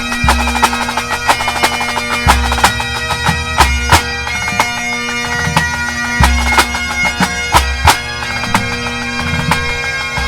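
Pipe band playing: Great Highland bagpipes sounding a fast tune over steady drones, with snare drums rattling out sharp, frequent strikes and a bass drum thumping the beat.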